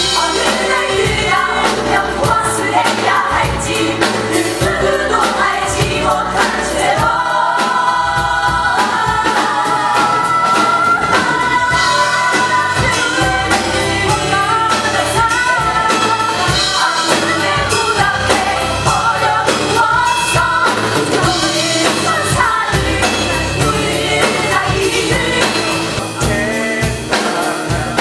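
Musical-theatre cast singing together over a live band with keyboard and drum kit, the song running on at a steady level and easing slightly near the end.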